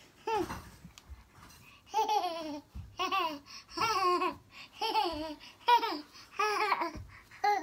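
A baby babbling in short, high-pitched calls that fall in pitch, about one a second.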